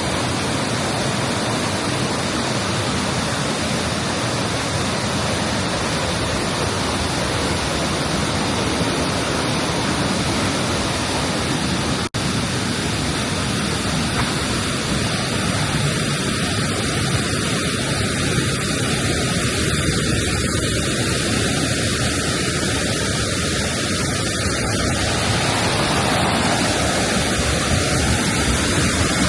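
Waterfall crashing down, a loud steady rush of falling water, with a split-second gap about twelve seconds in.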